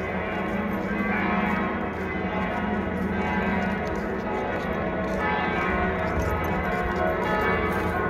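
Church bells ringing in a continuous peal: many overlapping tones sounding together, steady and without a break.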